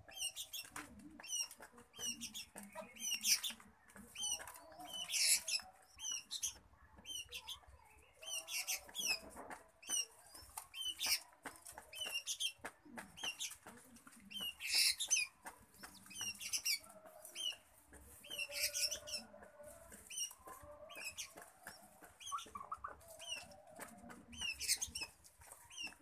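Spotted dove squab, about five days old, giving rapid high squeaks as it begs while a foster ringneck dove feeds it. The squeaks are broken every few seconds by louder bursts of wing fluttering and rustling in the nest.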